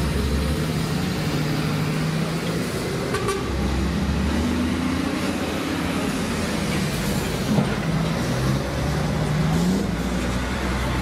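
Heavy diesel trucks, a DAF box truck followed by Terberg and GINAF tippers, driving slowly past one after another. Their engines rise and fall in pitch as they pull through the turn, and horns toot.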